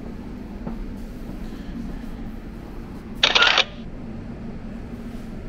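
Steady low hum inside a passenger train standing at a platform, broken about three seconds in by a short, loud burst of hiss.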